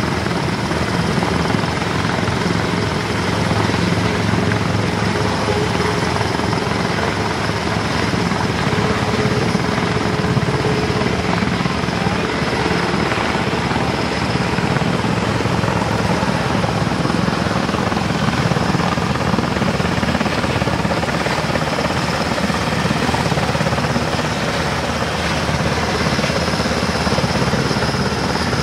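Army Super Puma-family transport helicopter lifting off and climbing away. Its rotor beats and its turbines whine steadily, and another helicopter's rotor is turning close by.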